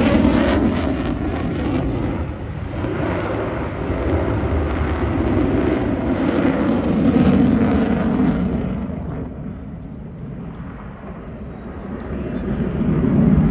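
Stealth fighter jet's engine roaring as it flies past. It fades for a few seconds about two-thirds of the way through, then swells again near the end.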